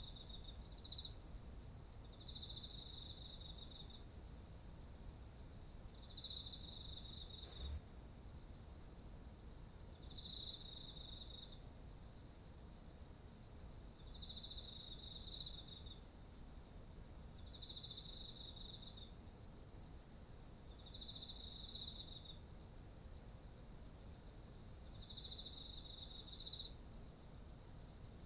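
Chorus of autumn insects calling: a continuous very high-pitched ringing drone, overlaid by repeated pulsed trills lasting two to three seconds each with short gaps, and shorter, slightly lower chirps in between.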